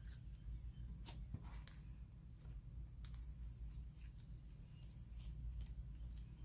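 Clear slime being stretched and handled by hand, giving faint, scattered sticky clicks and small pops over a low steady hum.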